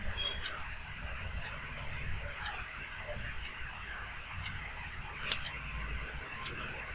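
Steel spoon stirring and scraping fried peanuts and chickpeas around a steel pot, with one sharp metal clink about five seconds in. A clock ticks steadily about once a second behind it.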